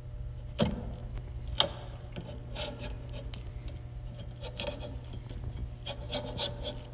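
A 5/8-18 hand tap being turned into a steel part clamped in a vise, cutting a thread: short scraping, grating strokes about once a second, over a steady low hum.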